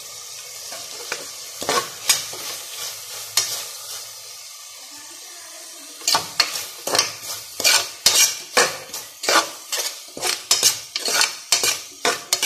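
Sliced onions, carrots and green chillies sizzling in oil in a pressure cooker as they are sautéed, with a spatula scraping the base now and then. From about halfway through the stirring becomes brisk, about two scrapes a second.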